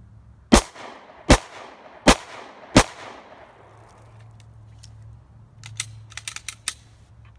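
Four 9mm shots from a Glock 19 Gen 4 pistol, evenly spaced about three-quarters of a second apart, each trailing a short echo. A quick run of light clicks follows near the end.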